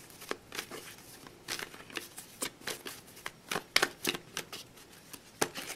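A deck of tarot cards shuffled in the hands: an irregular run of short snaps and flicks of card stock, a few a second.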